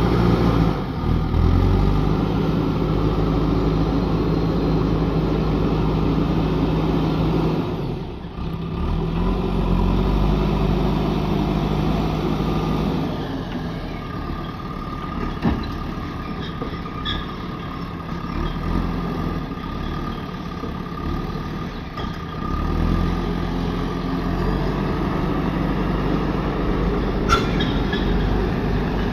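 Diesel engine of a JCB backhoe loader running and working up and down in pitch as its front bucket scoops soil and tips it into a tractor trolley, with the tractor's engine running alongside. The engine note dips about a quarter of the way in and picks up again. Two sharp knocks come in the second half.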